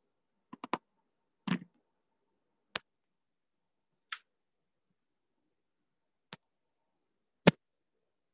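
Sparse, isolated clicks and short knocks with dead silence between them: a quick cluster of three about half a second in, then single ones every second or two, the loudest near the end.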